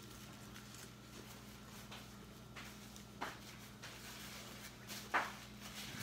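Soft eating noises, a few short mouth clicks and smacks while fried shrimp is being eaten, the loudest about five seconds in, over a steady low electrical hum.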